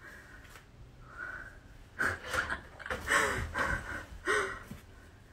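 A young woman's breathy laughter and gasps: a cluster of short bursts starting about two seconds in and ending a little before the end.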